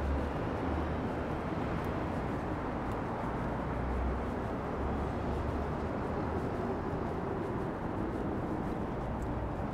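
Steady drone of expressway traffic.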